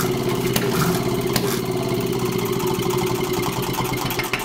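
Wisconsin two-cylinder air-cooled engine running at a steady speed, its pitch not changing, with a few sharp clicks over it.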